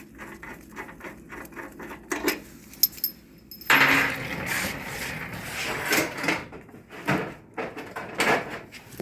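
Hand tools knocking and clattering against metal while working on a motorcycle wheel: a quick run of light clicks at first, a few sharp knocks, then louder clatter and rummaging from about four seconds in.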